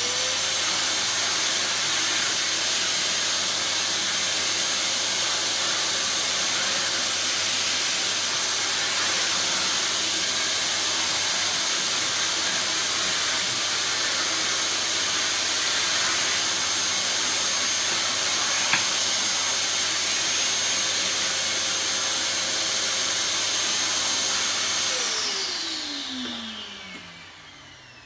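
Vacuum cleaner motor starting up and running steadily with a high whine as it sucks dust through a hose and crevice tool. About 25 seconds in it is switched off and the motor winds down, its pitch falling.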